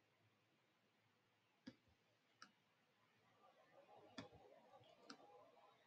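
Near silence: room tone with four faint, sharp clicks spread through it, made while handwriting on a screen with a digital pen tool. A faint low murmur comes in about halfway through.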